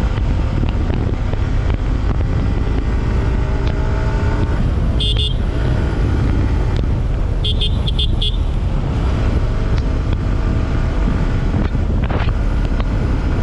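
Wind buffeting the microphone at about 85–90 km/h over a Yamaha R15 V4's 155 cc single-cylinder engine at cruising speed, its pitch rising a few times. A horn sounds briefly about five seconds in, then four quick toots around eight seconds in.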